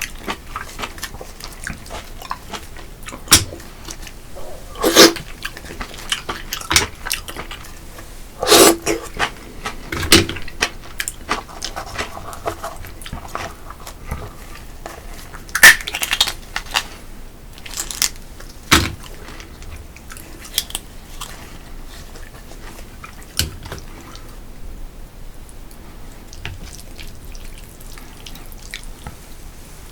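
A man eating Korean-Chinese food: chewing and crunching, with many sharp clicks of chopsticks or utensils against dishes and a few louder knocks.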